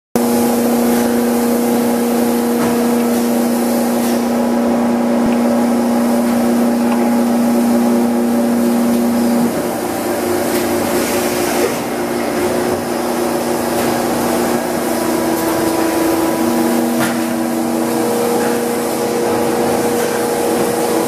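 A 1999 Engel ES7000-750 hydraulic plastic injection molding machine running, with a steady loud hum and whine over factory noise. About halfway through, the hum drops a little in level and its pitch shifts to a different set of tones.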